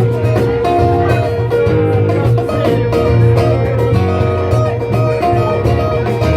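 Band music led by guitar, with strong bass and a steady beat.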